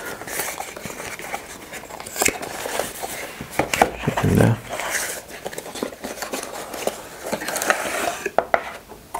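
Cardboard product box being opened and handled: flaps and the inner tray rustle, scrape and tap against the table in scattered clicks and scratches. A brief voice sound about four seconds in.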